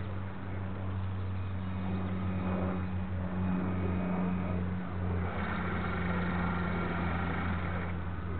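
The drive motor of a radio-controlled model destroyer running steadily, a low hum picked up by a camera on its aft deck. A higher whine joins for a few seconds in the second half.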